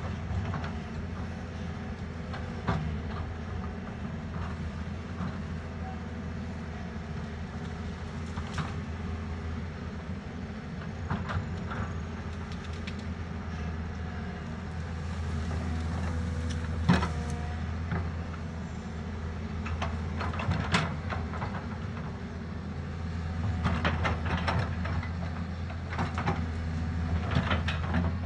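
Doosan DX140 hydraulic excavator's diesel engine running steadily, with sharp knocks and clanks now and then from the machine working.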